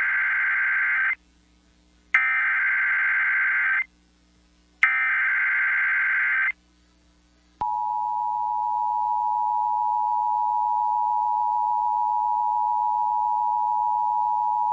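Emergency Alert System tones: three bursts of the SAME digital header, each a warbling data burst about a second and a half long with about a second between them. After the third burst, the steady two-tone EAS attention signal starts and holds. The header opens a National Weather Service flash flood warning.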